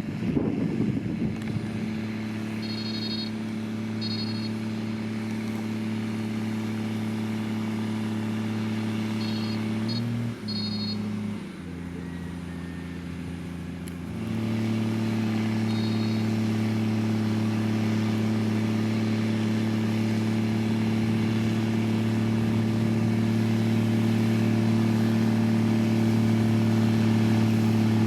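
Diesel engine of heavy road-construction machinery running at a steady pitch. About ten seconds in the note shifts and drops for a few seconds, then comes back slightly louder and holds steady again.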